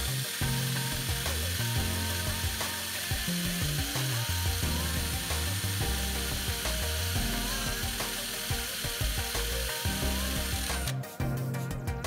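Cordless 18V drill boring into a rusted-solid steel bolt on cast iron, running steadily to split the seized bolt, then stopping about a second before the end. Background music plays underneath.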